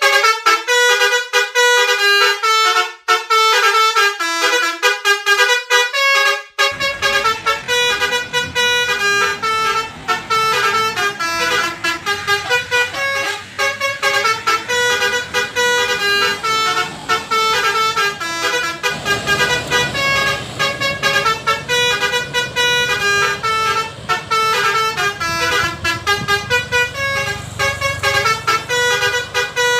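Basuri telolet bus horn playing a fast, many-note melody. About seven seconds in, a low engine or traffic rumble comes in under the horn and grows stronger after about 19 seconds.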